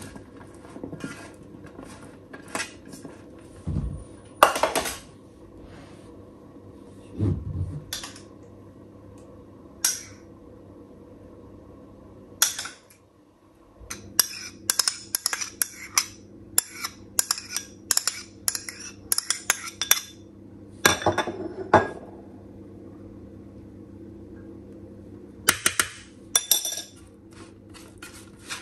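Kitchen utensils and dishes clinking and knocking against each other in scattered sharp clatters, with a quicker run of knocks in the middle, over a steady low hum.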